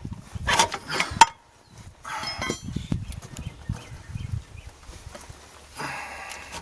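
Metal knocks and scrapes of a starter motor being wrestled loose under a pickup-size truck, jammed against the engine mount: a few sharp knocks in the first second or so, then uneven scraping and rubbing.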